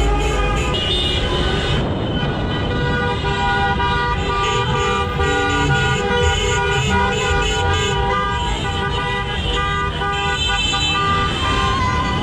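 Many car horns honking at once in long, overlapping blasts: celebratory honking from a slow-moving procession of cars.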